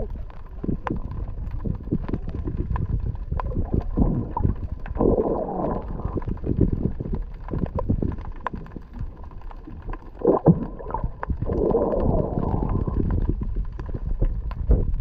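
Sea water sloshing and gurgling around a GoPro camera held just under the surface, heard muffled, with scattered small clicks and swells about five seconds in and again near twelve seconds.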